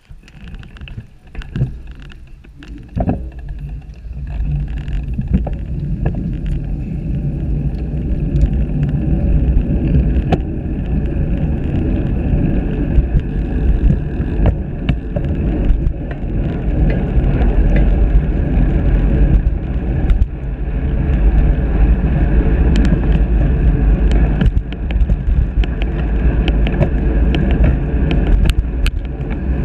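Wind and road noise on a handlebar-mounted camera as a road bike descends at high speed. The noise builds over the first few seconds as the bike gathers speed, then holds as a steady, heavy low rumble with occasional sharp clicks.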